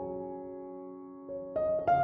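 Soft background piano music: held notes fade away, then new notes come in a little past halfway and again near the end.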